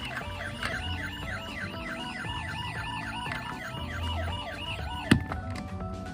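Electronic toy siren warbling fast, about three rises and falls a second, over background music. It stops with a sharp click about five seconds in.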